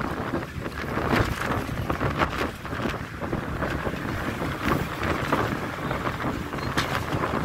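Steady road and engine noise heard from inside a moving bus, with wind gusting on the microphone at the window and heavy trucks passing close alongside.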